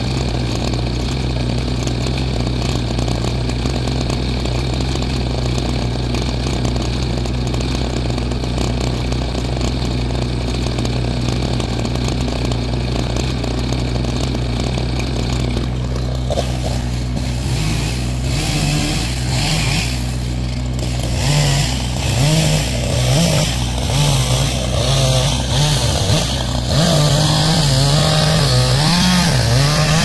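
Kubota BX23S tractor-backhoe's diesel engine idling steadily. About halfway through a two-stroke Echo chainsaw starts up and idles with repeated throttle blips, rising and falling in loudness, over the tractor's idle.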